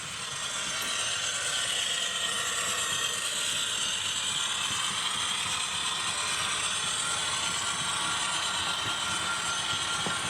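A train running by: a steady mechanical noise that swells in over the first second and then holds level, with a faint steady high tone in it.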